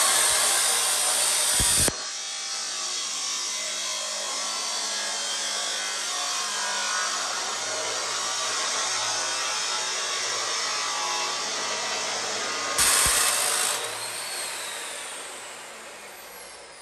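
Abrasive cut-off saw grinding through steel exhaust tubing, throwing sparks. It is loudest for the first two seconds and again briefly about thirteen seconds in. Then the motor winds down with a falling whine.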